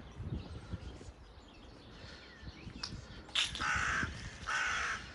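A crow cawing: two harsh caws about a second apart, beginning a little past the middle, over faint background noise.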